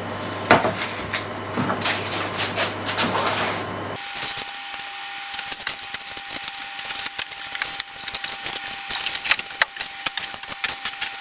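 Packaging being handled during unboxing: a steady stream of irregular crackles and rubbing scrapes.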